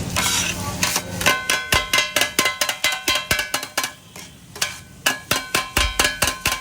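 Metal spatulas clanging rapidly on a hot iron griddle, about four or five ringing strikes a second, as food is chopped and tossed on the tawa, with sizzling at the start.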